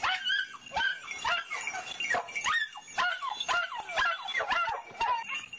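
Jagdterriers yelping and barking in quick, high-pitched cries that rise and fall, about two or three a second.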